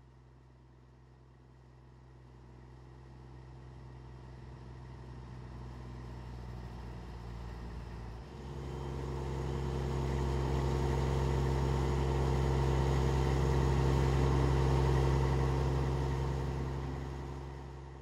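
Steady mechanical hum of a running motor with several held tones. It steps up in pitch and loudness about eight seconds in, is loudest a little past the middle, and fades near the end.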